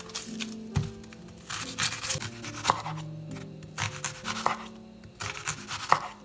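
Chef's knife slicing through an onion and knocking on a wooden cutting board in a series of short, irregular strokes, over background music with held notes.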